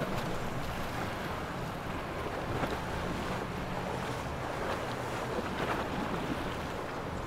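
Small Yamaha jet-drive center-console boat running past at speed: a steady engine hum under the rush of its wake, with wind buffeting the microphone.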